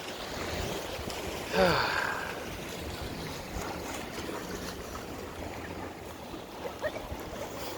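Steady ocean surf and wind noise, with one short wavering, voice-like call about a second and a half in.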